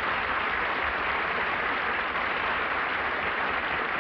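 A studio audience applauding steadily, heard on an old 1951 radio broadcast recording.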